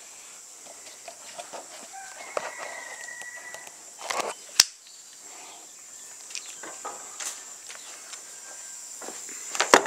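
Handling noises of someone working at a jet ski's plastic hull: scattered clicks, scrapes and a short squeak, with one sharp click about halfway through. Loud knocks near the end as the camera is picked up.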